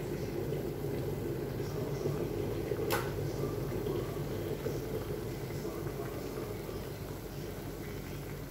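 Pot of cauliflower florets boiling hard, a steady bubbling, with a single sharp click about three seconds in.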